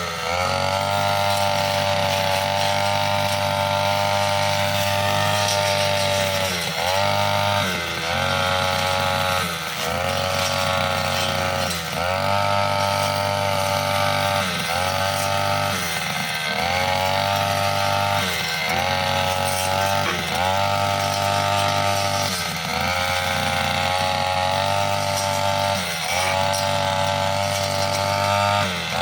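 Brushcutter engine running at high revs with a metal blade cutting mixed grass and small woody stems. The engine note dips briefly and recovers every one to three seconds as the blade takes load.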